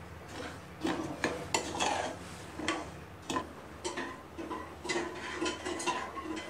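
Metal spoon stirring sugar and water in a metal saucepan to dissolve it for sugar syrup, clinking and scraping against the pan in irregular taps, some with a short ring.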